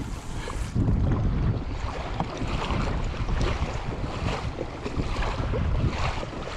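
Water rushing and splashing along the hull of a moving kayak, with wind buffeting the microphone in a low rumble.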